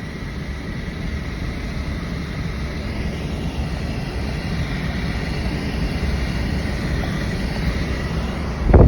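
Steady running rumble of a moving vehicle with wind noise, slowly growing louder, with a faint high whine over it. A loud gust of wind on the microphone right at the end.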